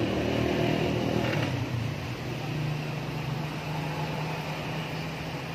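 Yamaha NMAX scooter engine running, revved at first and then dropping back to a steady idle about a second and a half in.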